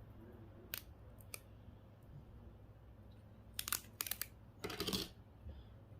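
Faint sounds of small electronic parts being handled on a workbench: two single light clicks, then a quick run of clicks and a short rustle a few seconds in, over a steady low hum.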